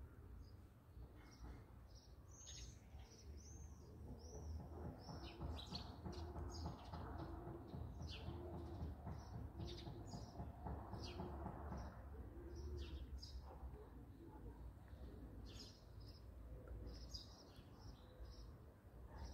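Small birds chirping: many short, thin, high notes in quick irregular series, over a faint steady low rumble.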